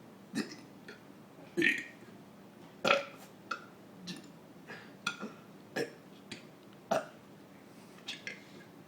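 A person burping out the alphabet, a string of short separate burps, about one a second, each a burped letter.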